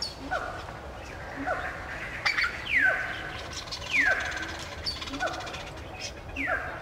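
Animal calls: a short, falling, whistle-like call repeated about six times, roughly once a second.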